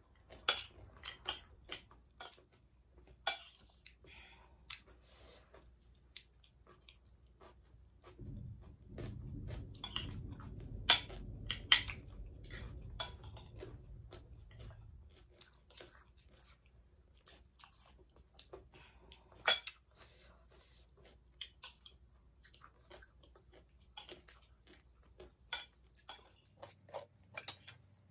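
Chewing and crunching of chatpate, a crunchy spiced puffed-rice snack, with spoons clicking and scraping on plates: many short, sharp clicks throughout. A low rumble rises for several seconds in the middle.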